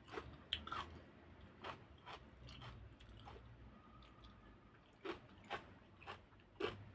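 A person chewing and biting food close to the microphone, with short crisp crunches at irregular intervals, as when eating raw fresh vegetables with grilled pork salad.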